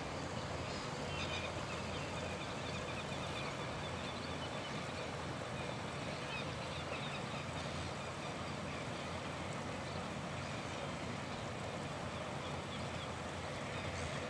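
Steady low outdoor background rumble with a faint mechanical hum running under it, and a few faint high chirps scattered through.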